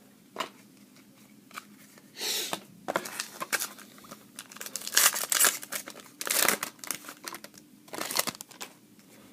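Trading-card pack wrapper being torn open and crinkled by hand, in several short rustling bursts.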